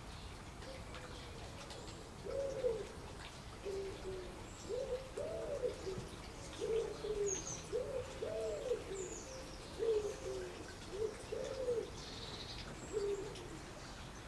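A bird calling with a run of low, repeated cooing notes in short phrases, starting about two seconds in and stopping near the end, with faint high chirps from small birds.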